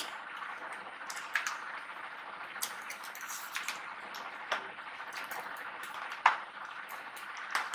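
Metal spoons scraping and tapping against plastic ice-cream tubs: scattered small clicks over a steady background hiss, the loudest near the end.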